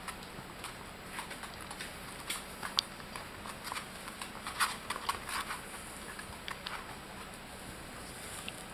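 Young puppies' paws pattering, with light irregular clicks and taps of claws, bunched most thickly in the middle of the stretch.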